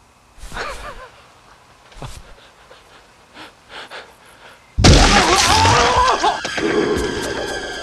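A man screams suddenly and loudly about five seconds in, his cry wavering in pitch, after a few quiet seconds with only faint sounds. Music with sustained tones comes in under the scream and carries on.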